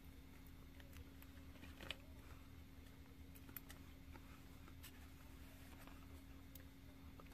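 Near silence: a steady low hum, with a few faint scattered clicks from someone quietly eating a piece of fried chicken karaage and handling its plastic wrapper.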